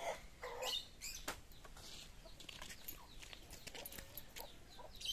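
Chickens clucking, fairly faint, with short high falling chirps among them and a single click about a second in.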